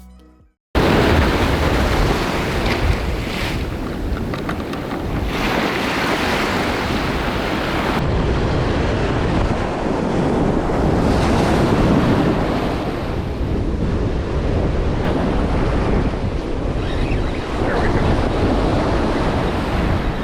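Wind buffeting the microphone over surf washing onto the beach, a dense, steady rush with a heavy low rumble. It cuts in abruptly about a second in after a brief silence.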